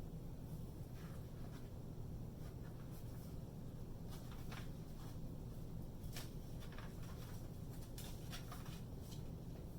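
Faint paper rustles and light taps from a picture book being handled and its pages turned, a few scattered irregular strokes over a steady low hum.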